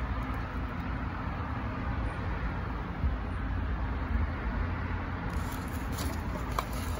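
Steady low rumble of outdoor background noise with a faint hum. Near the end, light paper rustling and a couple of small clicks from the picture book's pages being handled.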